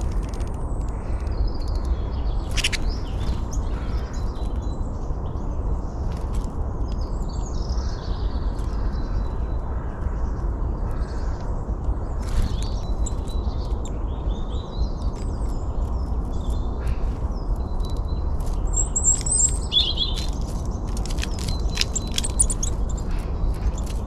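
Small songbirds chirping and calling on and off, busiest near the end, over many sharp clicks and a steady low rumble.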